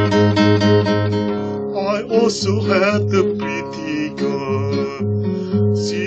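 Classical acoustic guitar played fingerstyle, with regularly pulsing bass notes under the chords. A man's voice sings a short phrase with vibrato about two seconds in.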